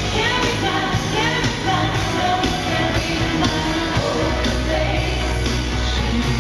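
Live pop concert music heard from within the crowd: a singer over a band and a steady dance beat of about two beats a second, with heavy bass.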